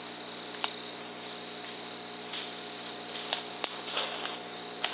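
Night insect chorus of crickets: a steady high-pitched trill, with a faint low hum underneath and a few sharp clicks, the loudest about three and a half seconds in.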